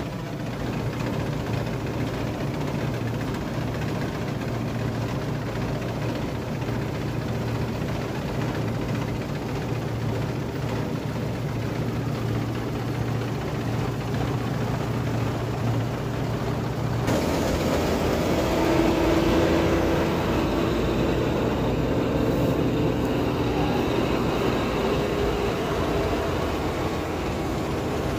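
Claas Dominator 48S combine harvester running steadily under load while harvesting wheat. About seventeen seconds in, the sound changes suddenly to a louder mix with a steady higher hum.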